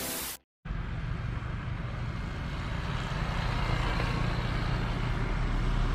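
A motorcycle engine running steadily, starting about half a second in after a brief silence.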